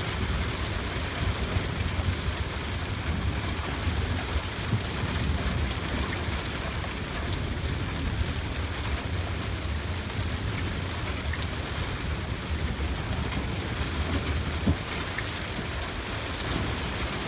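Steady rain falling in a thunderstorm, with scattered drops ticking close by and a low rumble underneath throughout.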